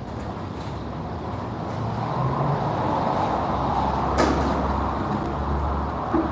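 Pressure washer running in a car wash bay: a steady hum and hiss that grows louder about two seconds in, with one sharp click a little after four seconds.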